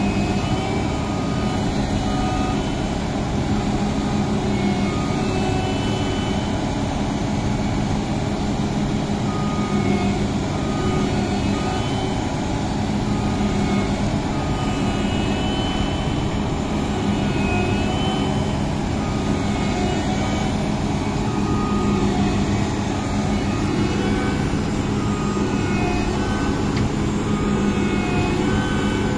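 Massey Ferguson CS6050 rice harvester's diesel engine running steadily under load, with short high-pitched tones coming and going over the hum.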